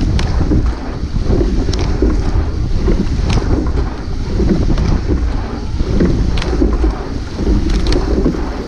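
Wind buffeting the microphone in a loud rumble during a rowing eight's race, with a sharp knock about every second and a half in the steady rhythm of the racing stroke.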